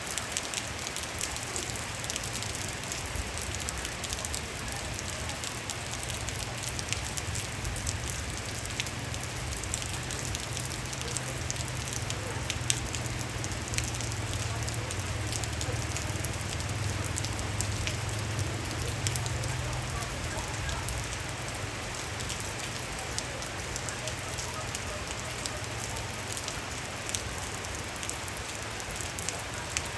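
Steady rain falling, with many separate drops ticking sharply against a surface over an even hiss, and a low steady rumble underneath that swells a little midway.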